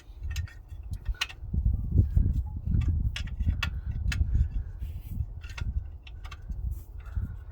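Metal wrench clicking and clinking irregularly against a bolt and engine parts as the bolt is worked loose, over a low rumble that is strongest in the first half.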